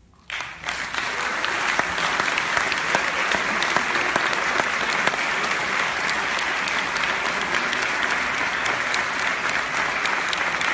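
A large audience applauding: the clapping breaks out suddenly just after the start and keeps up steadily.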